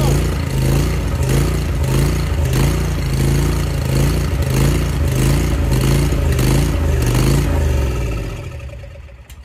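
Kawasaki FD731V liquid-cooled V-twin engine on a Ferris zero-turn mower running with a regular, uneven pulse, then shutting off about eight seconds in and winding down to a stop.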